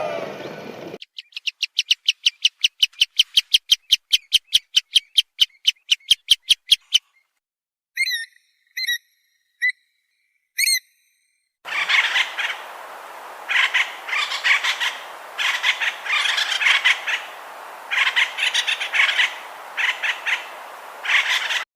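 Bird calls in three parts: a fast run of sharp chirps, about five a second for six seconds, then four short separate chirps, then a longer stretch of scratchy, irregular calls.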